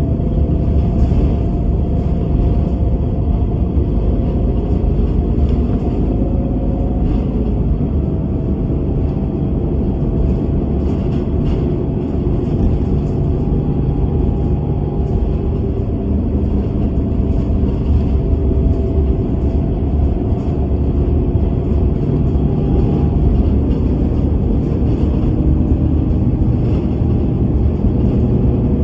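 Bus on the move: a steady low engine and road rumble, with a faint whine that slowly shifts in pitch and light rattles now and then.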